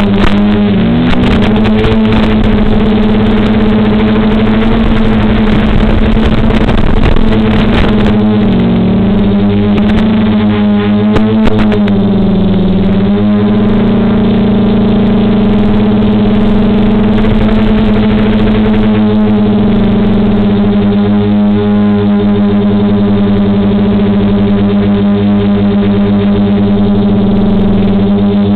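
DJI F450 quadcopter's four DJI 2212 brushless motors and 9540 two-blade propellers hovering in position hold: a loud, steady hum whose pitch wobbles briefly a few times as the motors adjust.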